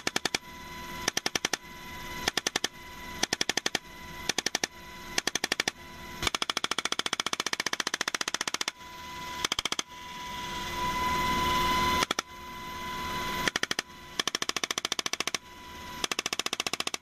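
Helicopter door-mounted 7.62mm machine gun firing short bursts, about one a second, with one longer burst of about two and a half seconds. Between bursts, helicopter noise with a steady whine.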